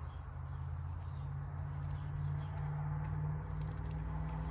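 A steady low hum with faint, evenly repeating high chirps, about two or three a second, over it.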